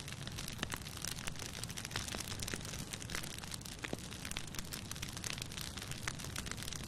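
Bonfire burning: a steady rushing of flames with frequent sharp crackles and pops from the burning wood, several each second.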